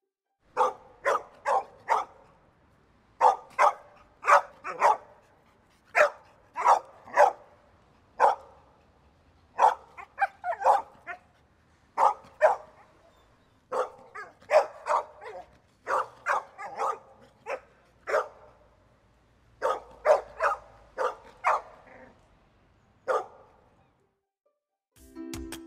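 Mixed-breed dog (mutt) barking repeatedly, in quick runs of two to four barks with short pauses between the runs. The barking stops near the end.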